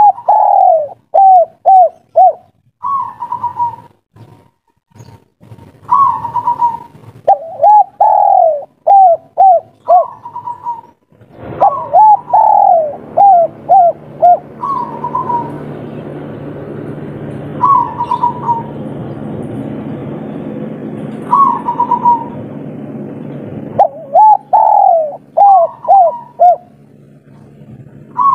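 Spotted dove singing its 'kuk 3' coo: phrases of a higher opening coo followed by a run of short, lower coos, repeated every couple of seconds. A steady low rumble sits underneath through the middle stretch, from about twelve seconds in until about twenty-four.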